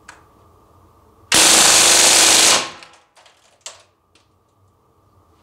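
CO2-powered replica Thompson M1A1 submachine gun firing one full-auto burst of about a second and a quarter, starting about a second in. A few light clicks follow.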